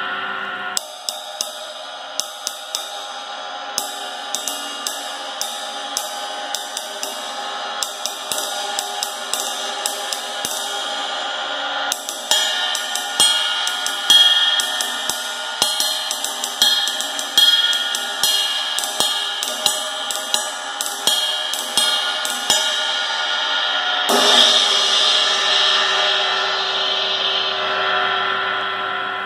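A 20-inch Paiste dark crash cymbal played with a wooden drumstick. It starts with a few single taps, then is ridden with several strokes a second and harder accents. Near the end it is struck hard once as a crash and left to ring and fade.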